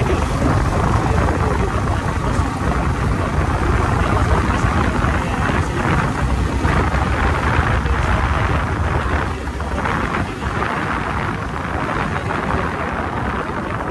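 Wind buffeting a phone microphone on a moving motorcycle, a loud steady rumble with the bike's engine and road noise underneath; it eases off a little from about two-thirds of the way in.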